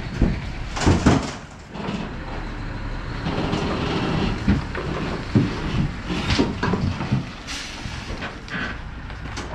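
Truck hauling a fully loaded shipping container on a trailer, pulling away slowly with its engine running at a low steady rumble. There are a few loud knocks and clanks about a second in, and short hisses later.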